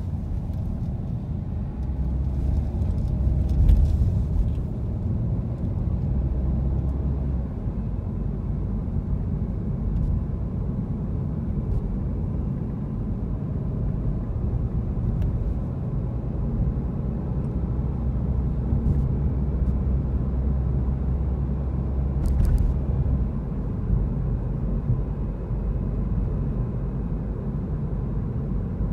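Car cabin noise while driving through city traffic: a steady low rumble of engine and tyres on the road. There are a couple of brief clicks, one early and one about two-thirds of the way through.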